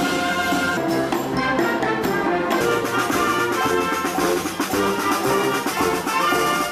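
Band music: brass instruments playing a tune over a steady drum beat.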